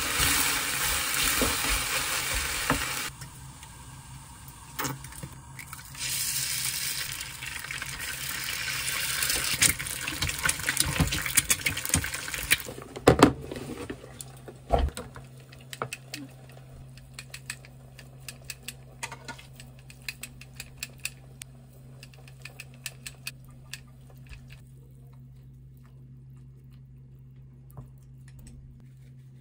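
Food sizzling in a frying pan. The sizzle breaks off about three seconds in and comes back a few seconds later, until about halfway through. Then come a couple of loud knocks, and light clicks over a steady low hum that fade toward the end.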